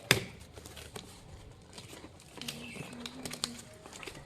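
Parcel packaging being handled and opened: a sharp snap just after the start, then scattered crinkling and rustling.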